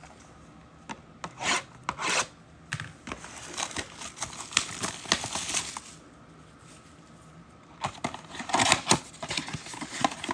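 A trading-card mega box being unwrapped and opened by hand: plastic wrap tearing and crinkling, with cardboard rubbing, in scattered bursts that grow busier and louder near the end.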